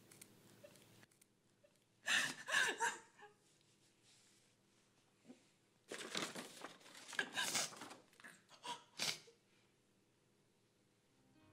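Paper crinkling and rustling in two spells as a folded sheet is handled and opened out, mixed with a woman's quiet, breathy sobs.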